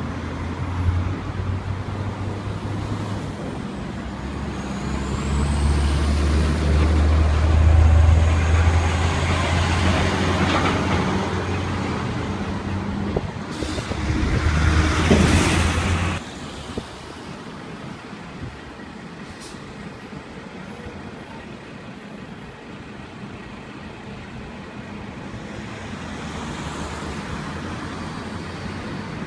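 A heavy diesel truck's engine runs deep and steady, growing louder as it draws near. Halfway through, a loud rush of hissing noise cuts off suddenly. After that, quieter road traffic continues.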